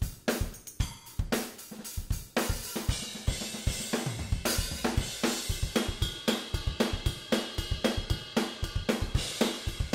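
Rock drum kit playing back from raw multitrack recordings: kick and snare in a steady beat, with cymbals washing in about two and a half seconds in. The sample reinforcement on the kick and toms is muted, leaving only the acoustic drum mics.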